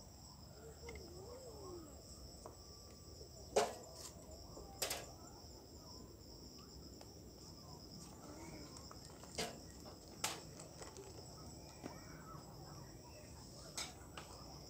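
Steady high-pitched chorus of insects, with a few sharp knocks scattered through it.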